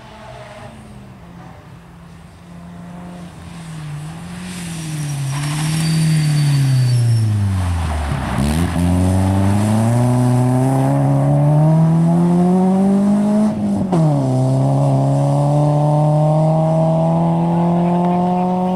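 Rally car engine coming closer and slowing, its note falling to a low point near the middle, then pulling hard away with a steadily rising note, one gear change about three quarters in, and climbing again.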